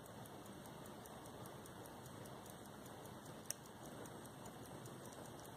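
Faint, rapid ticking of a key-wind gold pocket watch movement running, about five ticks a second, over a steady hiss. One sharp click comes about three and a half seconds in.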